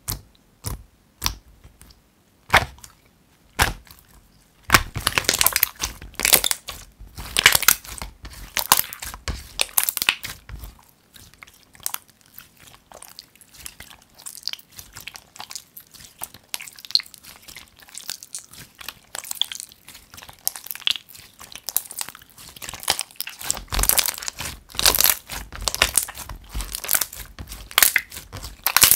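Clear water-glue slime being poked, pressed and squished by hand: a few separate sticky clicks at first, then dense wet crackling and popping as it is squeezed, folded and stretched, quieter for a while in the middle and busy again near the end.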